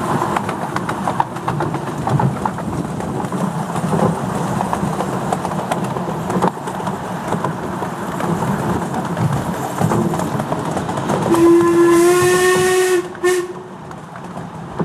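Miniature steam railway carriages rumbling and rattling over the track. About eleven seconds in, the steam locomotive's whistle blows one long note of about two seconds with a loud hiss of steam, followed by a brief second toot.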